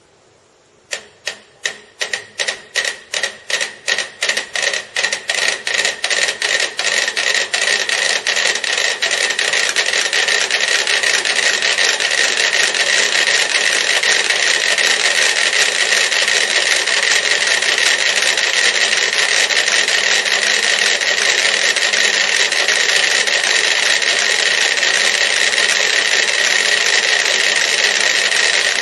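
Dozens of small clockwork metronomes are set ticking one after another. Separate ticks start about a second in, come thicker and faster as more are started, and by about ten seconds merge into a dense, even clatter of unsynchronised ticks.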